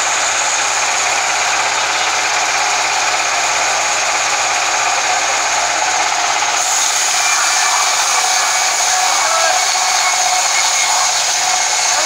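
Large band sawmill running, with a loud steady noise and no let-up.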